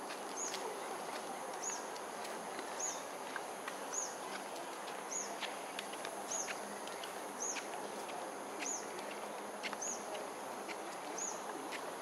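Evening outdoor ambience: a steady high-pitched insect drone over a dense background hiss, with a short, thin, high chirp repeating about once a second.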